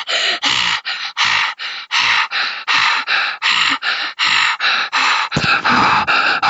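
A person panting heavily and quickly close to the microphone, about four breathy gasps a second, which run together into one continuous rush of breath near the end.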